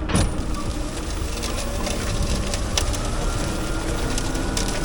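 Tractor engine running steadily as it pulls off with the pumpkin planting rig, with scattered rattles and clicks over the steady hum.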